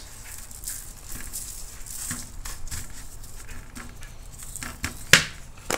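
Gloved hands patting and rubbing dry seasoning into raw beef short ribs on aluminum foil: soft irregular pats and foil crinkling, with one sharp click about five seconds in.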